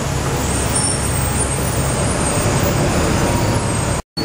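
Bus running along a city street, heard from on board: a steady low engine rumble with road and traffic hiss. The sound cuts out completely for a moment near the end.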